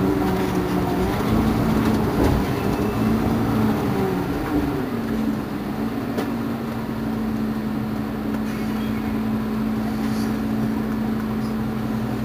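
Mercedes-Benz Citaro G C2 articulated bus standing at a stop with its engine running, a low steady hum. Its pitch shifts for the first few seconds, then settles on one even tone about five seconds in.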